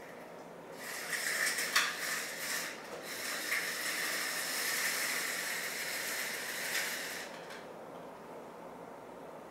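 Vertical blinds being turned open and drawn aside along their headrail: clattering vanes with a few sharp clicks, then a steady sliding rush for about four seconds that stops about seven seconds in.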